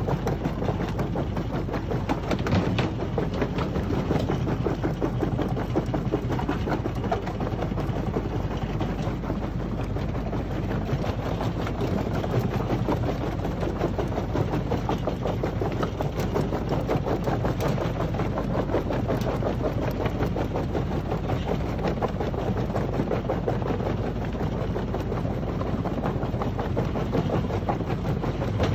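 Screencore XL jaw crusher running and crushing brick and stone demolition rubble: a steady machine hum under continuous clatter and knocking of rock in the jaws.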